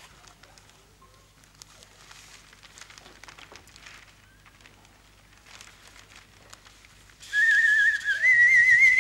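Faint rustling of newspaper pages, then, about seven seconds in, a hand-held bird call blown in a loud warbling, trilling whistle that imitates a songbird.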